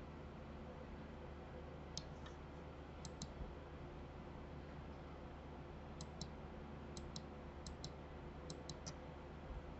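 Faint computer mouse clicks, about a dozen, mostly in quick pairs, against a low steady hum.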